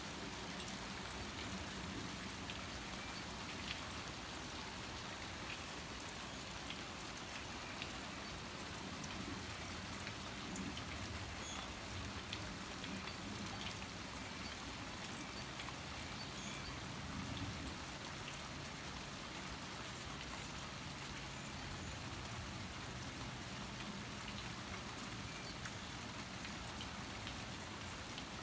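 Steady rain falling, with scattered raindrops ticking on a surface.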